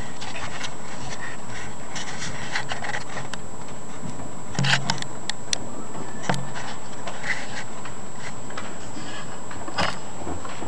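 Paper rustling and light clicks as sheet music is handled on a grand piano's music desk, over a steady hiss of room noise; two duller thumps come about four and a half and six seconds in. No piano is played yet.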